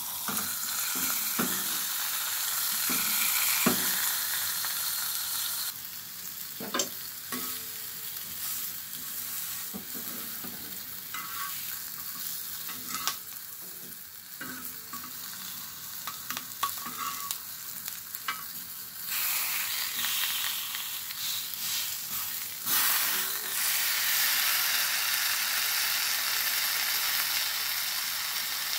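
Capsicum pieces and a patty sizzling in oil on a flat iron griddle, with a steel spatula scraping and tapping against the pan now and then. The sizzle dies down for a while in the middle and gets louder again about two-thirds of the way through.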